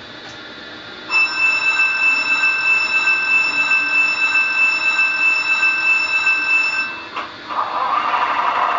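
Model rail car's DCC sound decoder playing through its tiny speaker: a steady, high-pitched horn tone held for about six seconds and cut off, then after a click a diesel engine sound starts near the end.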